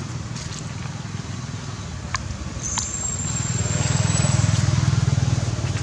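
Low rumble of a vehicle engine running, growing louder from about three and a half seconds in, with a few sharp clicks and a thin high whistle-like tone in the middle.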